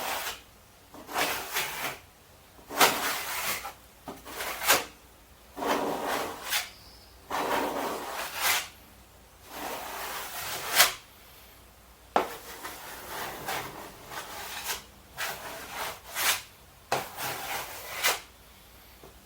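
A serrated scraper dragged in repeated strokes across a surface, spreading adhesive, each stroke about half a second to a second long, with a few sharp clicks between them.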